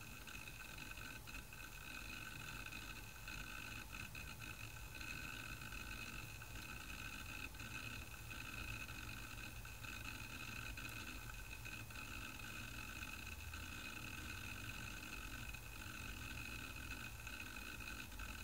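2.5-inch IBM Travelstar laptop hard drive in an iBook G4, spinning with a steady faint high whine and a few scattered faint seek clicks as it works during boot.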